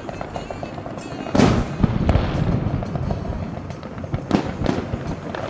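Fireworks going off: a loud bang about a second and a half in, followed by crackling, then two more sharp bangs close together near the end.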